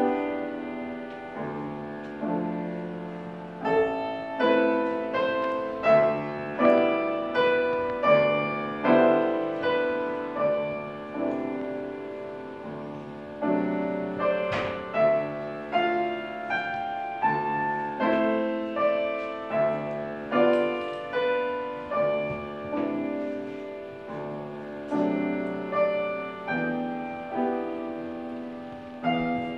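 Grand piano played solo: a steady, moderate-tempo piece of melody notes over chords, each struck and left to ring and fade.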